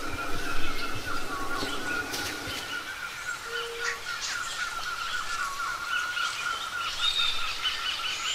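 Rainforest ambience: bird chirps and calls over a steady, high, wavering drone.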